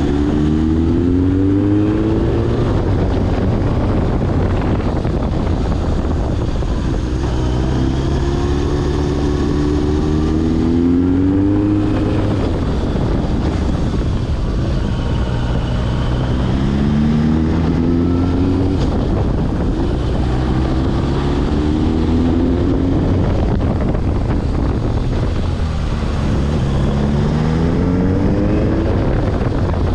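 Suzuki GSX1100S Katana's air-cooled inline-four engine running on the move, its pitch rising several times as it accelerates and dropping back in between, over a steady low rush of wind.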